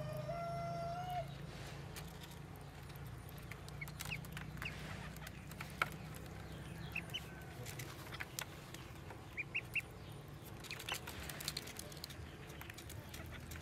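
Ducklings peeping while they feed: scattered short, high peeps, three of them in quick succession a little past the middle. A drawn-out bird call opens it, over a steady low hum.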